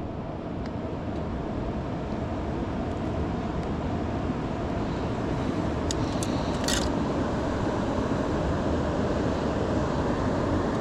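Steady rush of fast-flowing river water, with a few brief clicks about six to seven seconds in.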